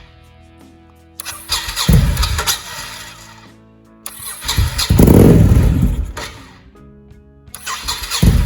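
Honda VT1100 V-twin motorcycle engine in three start attempts of about two seconds each, dying away after each one without settling into an idle. Faint background music between the attempts.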